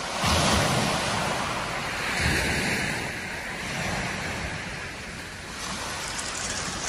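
Small waves breaking and washing over a shingle beach: a steady hiss that swells about a third of a second in and eases off later. A light wind rumble on the microphone sits underneath.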